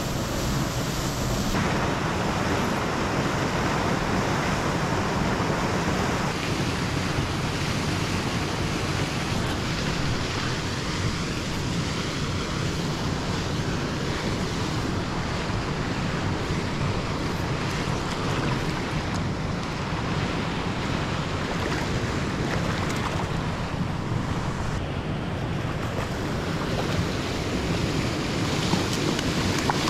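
Steady rushing noise of river current mixed with wind buffeting the microphone, with no distinct events.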